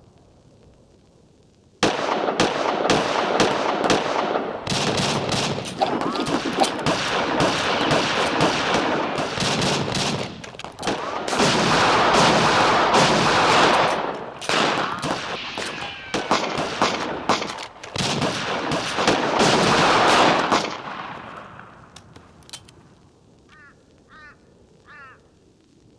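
Sustained revolver gunfire in a shootout: many shots fired rapidly and overlapping, starting suddenly about two seconds in and going on for some eighteen seconds before dying away. Three short, high chirps follow near the end.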